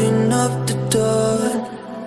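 Background music: held, pitched notes moving from note to note, with a few sharp percussive strokes, growing quieter about one and a half seconds in.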